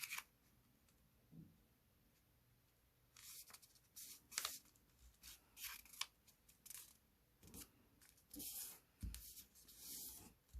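Faint rustles and swipes of a sheet of origami paper being folded and creased by hand, in short separate strokes through the second half.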